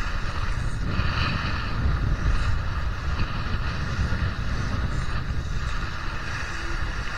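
Wind buffeting the microphone over the rushing wash of water along a Laser 2 sailing dinghy's hull, sailing fast in strong wind of up to 23 knots.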